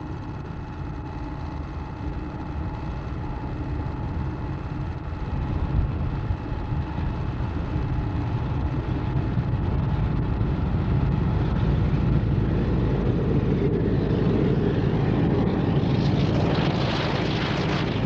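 Class 33 diesel locomotive propelling a rake of TC coaches towards and past the listener: a steady engine drone that grows gradually louder, then a rush of wheel and rail noise, loudest near the end as the locomotive goes by.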